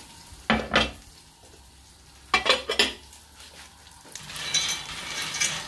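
Two short rounds of kitchen clatter, a ceramic butter dish and utensils knocking, about half a second and two and a half seconds in. From about four seconds in, macaroni and a lump of butter begin sizzling as they fry in a frying pan and are stirred with a spatula.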